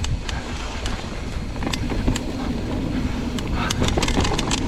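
Wind noise on the microphone during a mountain-bike descent, with scattered sharp clicks and rattles from the Trek Remedy mountain bike as it chatters over rough trail.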